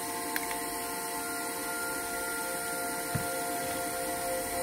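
Steady electrical hum of several held tones over a constant hiss, with two faint ticks of metal tweezers against the phone frame, one about half a second in and one about three seconds in.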